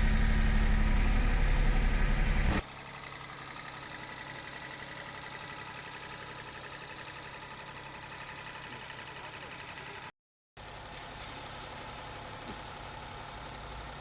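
Toyota Vitz's 1KR three-cylinder petrol engine idling steadily. It is loud with a deep hum for the first two and a half seconds, then cuts abruptly to quieter, even running with a thin high tone. A brief dropout to silence comes about ten seconds in.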